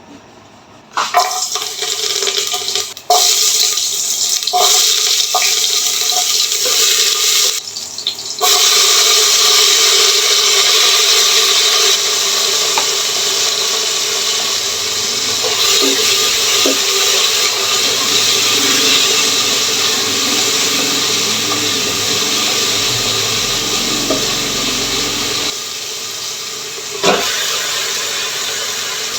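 Water running steadily from a kitchen tap into a sink, with a few knocks.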